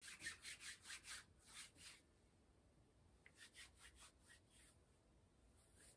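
Faint, quick rubbing strokes, about five a second for two seconds, then a few more scattered ones, with near silence between them.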